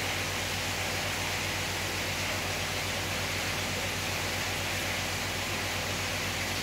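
Steady, even hiss with a low hum underneath, unchanging throughout, with no single event standing out.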